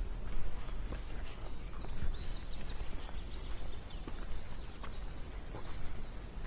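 A small songbird singing a quick run of short, high chirps through the middle, over a hiker's irregular footsteps and a low steady rumble.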